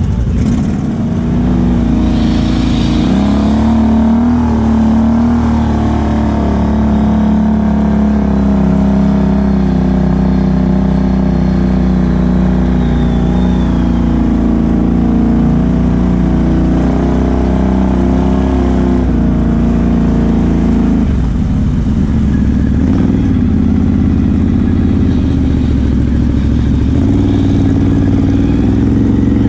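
Can-Am Outlander XMR 1000 ATV's V-twin engine, fitted with a Big Gun exhaust, running under way on a muddy trail. The revs climb about two seconds in, hold fairly steady, drop briefly a little past two-thirds through, then pick up again.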